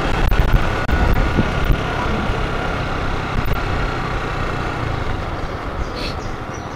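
Honda Titan motorcycle ridden along a street: its single-cylinder engine running under wind noise on the microphone, getting slightly quieter toward the end.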